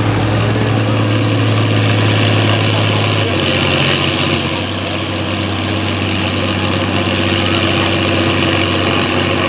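Farm pulling tractor's engine running steadily, its low note easing a little about three seconds in.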